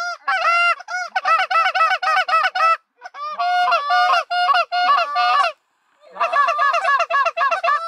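A hunter blowing a goose call in quick runs of Canada goose clucks and honks, about four to five notes a second. There are three runs, with short breaks about three seconds in and again about five and a half seconds in.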